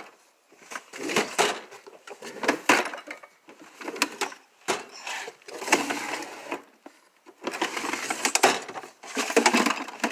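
Metal toolbox being handled, its drawers and contents clattering and rattling in about half a dozen bursts.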